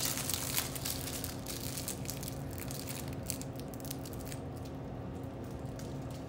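Clear plastic wrapping crinkling and crackling as it is pulled off a Blu-ray case. The crackles thin out after about four seconds.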